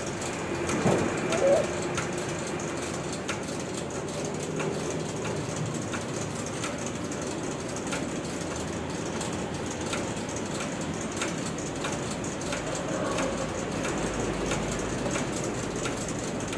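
Long factory conveyor belt running: a steady mechanical noise with light clicks every second or so.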